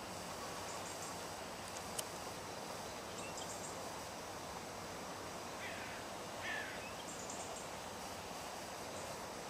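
Steady outdoor background hiss. A distant bird gives two short, faint calls about six seconds in.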